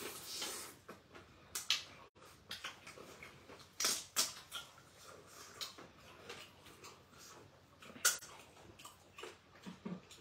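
Close-up eating sounds of people eating okra soup by hand: irregular wet smacks, chewing clicks and slurps, with a few louder slurps scattered through.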